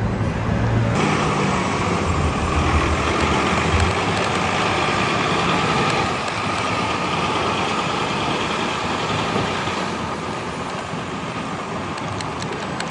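Steady motor-vehicle noise: engine running with a rushing hiss, brightening about a second in and easing near the end.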